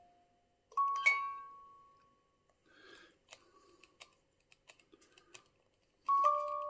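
Hand-crank music box movement playing slowly: a single plucked note rings out and dies away about a second in. After a few seconds of faint clicking, two more notes sound near the end.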